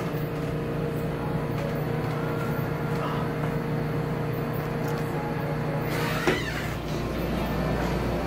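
Steady mechanical hum of commercial kitchen equipment, such as refrigeration, holding the same low tones throughout, with a brief squeak about six seconds in.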